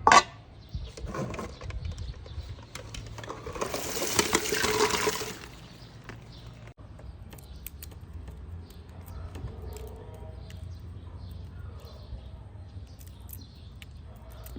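Liquid being poured for about two seconds, starting a few seconds in, with a few faint clicks and handling sounds around it.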